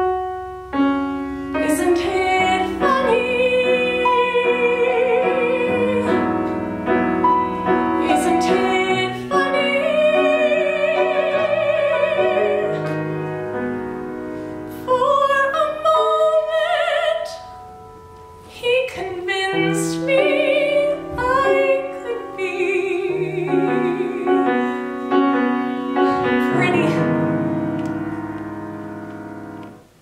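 Female solo voice singing a musical-theatre ballad in long held notes with vibrato, over piano accompaniment; the sound dies away near the end.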